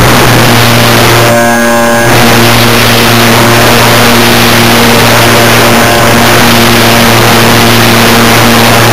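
Electric motor and propeller of a Multiplex EasyCub model airplane running steadily in flight, picked up very loud by a camera mounted on the plane, with a dense rush of air noise. A brief higher whine joins in about a second and a half in.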